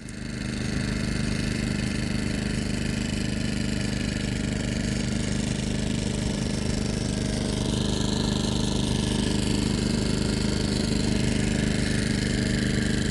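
An engine idling steadily, an even low hum with hiss above it that does not change in speed or loudness.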